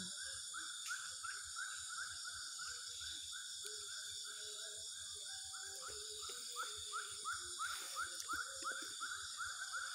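Creekside animal chorus: a steady high shrill drone under a rapid, even chirping call repeated about four or five times a second, a little louder in the second half.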